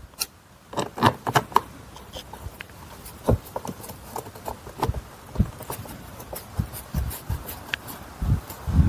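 Irregular small clicks, taps and rubbing of a hand screwdriver driving a small screw into the plastic seat trim panel, with a couple of duller knocks near the end.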